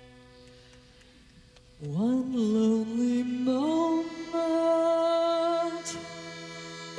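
Live band music: a faint sustained drone, then about two seconds in a loud long held note swoops up into pitch. It steps higher a second and a half later and is held, with a small click about six seconds in.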